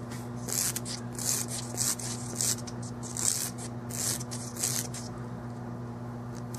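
Coarse-to-medium nail file rasping across a cured gel-coated fingernail in short strokes, roughly one or two a second, stopping about five seconds in, filing away excess gel thickness. A steady low hum runs underneath.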